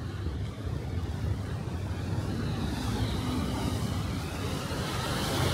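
Steady low rumble of motor-vehicle traffic, with a hiss that grows louder from about halfway through.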